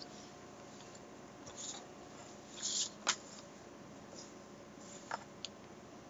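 Quiet room tone with a few scattered sharp clicks and a couple of brief rustles, the small handling noises of someone working at a desk.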